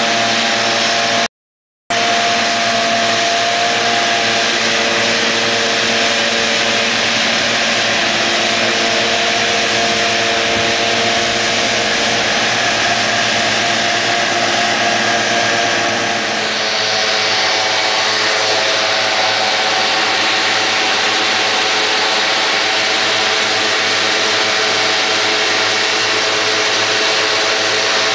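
Valtra S353 tractor running under load while working a Pöttinger Novacat X8 triple mower: a steady engine and machine drone with several held tones over a hissing noise. The sound cuts out for half a second near the start, and the mix of tones shifts about halfway through.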